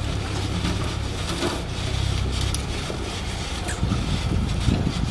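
Colt diesel dump truck's engine running steadily as the truck moves, with a few knocks near the end.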